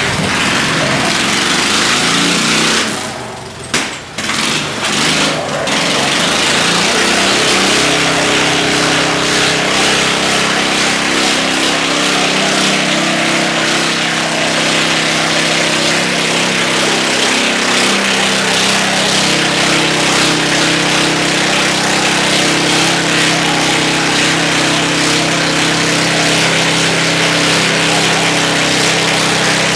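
Garden tractor engines running hard under load as two tractors chained together pull against each other. The sound drops briefly about three to four seconds in, then the engines run steadily at high revs.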